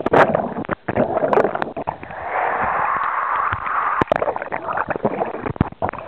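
Water rushing and splashing down an enclosed water slide, with many sharp knocks and thumps as the rider and camera bump along the slide. The rush of water swells for about a second and a half in the middle.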